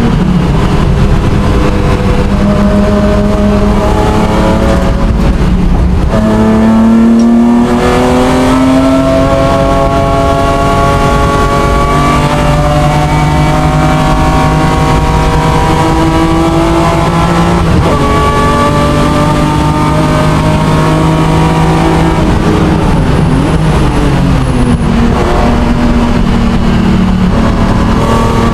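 BMW M3 race car engine heard from inside the cockpit, pulling hard through the gears: the pitch climbs, drops at each upshift about seven, twelve and eighteen seconds in, then falls away under braking and downshifts a little over twenty seconds in before climbing again near the end.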